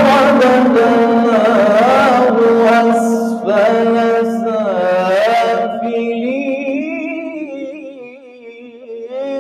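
A man's voice chanting Quran recitation at a microphone in the melodic tajweed style: one long drawn-out phrase with ornamented turns in pitch. It climbs to a higher register about six seconds in, softens over the last few seconds, and breaks off just at the end with a short echo.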